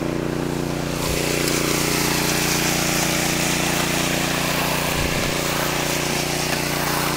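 Gas-powered concrete power trowel's small engine running steadily.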